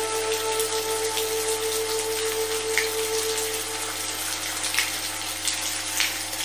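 Steady rain noise with a few brief, sharper drops, over a soft drone of sustained synthesized tones; one of the tones fades out a little past the middle.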